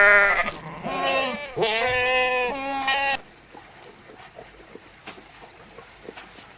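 Bleating livestock: one call trails off just at the start, a short call comes about a second in, and a longer wavering call ends around three seconds in. After that there is only faint background with a few small clicks.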